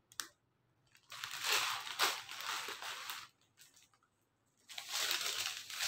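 Plastic grocery packets crinkling and rustling as they are handled. The sound comes in two stretches, the first about a second in and lasting about two seconds, the second starting near the end after a short pause.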